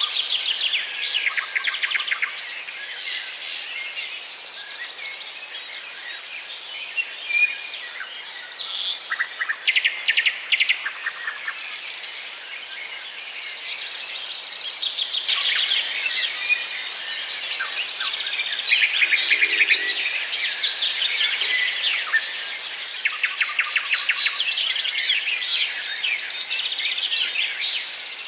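Small songbirds chirping and twittering, many calls overlapping, with frequent bursts of rapid trilled notes.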